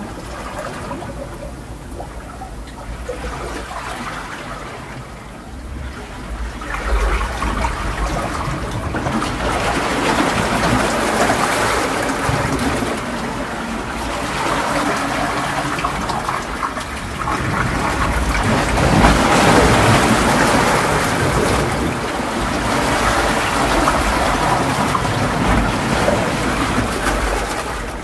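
Ocean surf: waves breaking and washing in as a continuous rushing. It is softer for the first several seconds, then grows louder and swells and eases in long surges.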